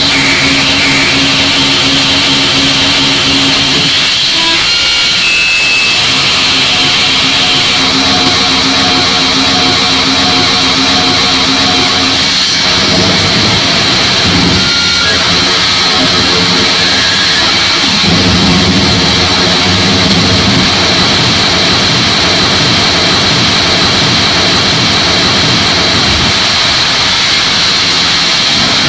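Harsh digital noise music: a loud, dense wall of static with held droning tones underneath that cut off and change abruptly several times.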